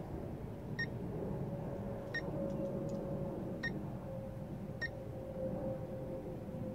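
Four short, high electronic beeps, about one and a half seconds apart, over a steady low hum.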